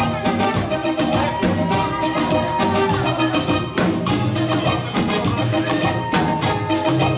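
Live band playing up-tempo Latin dance music, with drum kit and percussion keeping a steady beat under held instrumental notes.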